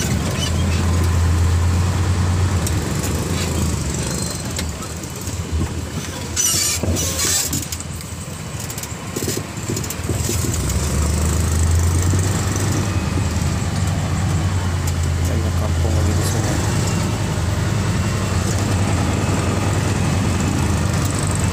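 Logging truck's diesel engine running, heard from inside the cab as a steady low hum. It eases off for a few seconds after about four seconds in, with a brief burst of hissing noise around six to seven seconds in, then pulls steadily again.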